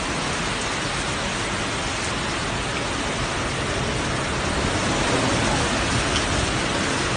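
Torrential rain and strong storm wind, a steady dense hiss, swelling slightly about halfway through.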